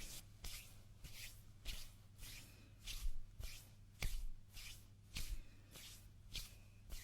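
Hands rubbing together in rhythmic strokes about twice a second, each stroke a dry swish, with a few soft low knocks as the hands press together.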